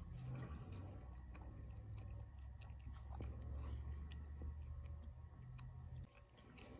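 Faint handling noises of microphone parts being worked by hand: small scattered clicks and light scrapes of plastic and metal pieces. A low hum sits underneath and stops about six seconds in.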